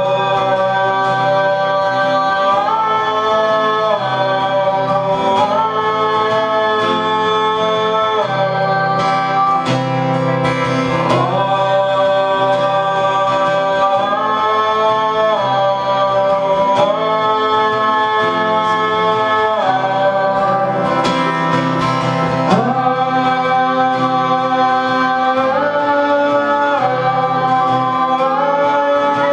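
Live acoustic guitar accompanying voices singing a folk song, with long held notes that slide from one pitch to the next.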